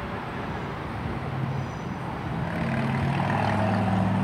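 Passenger train pulling out of the station, its low hum building from about a second and a half in and growing louder near the end.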